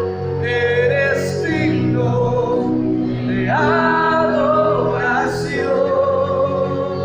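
Worship music: singing voices in long, gliding phrases over steady held accompaniment chords.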